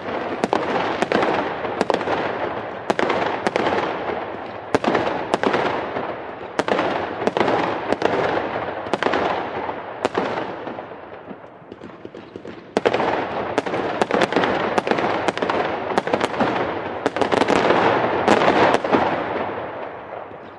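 Fireworks display with aerial shells bursting in quick succession: sharp bangs about one or two a second over a continuous wash of noise. It fades toward the middle, then a fresh volley starts sharply a little past halfway.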